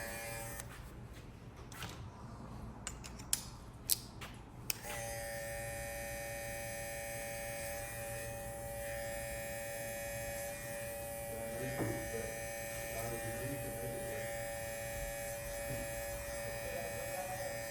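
Babyliss Pro cordless hair clipper running with a steady hum that stops under a second in. Three sharp clicks follow, and from about five seconds in the clipper runs again steadily.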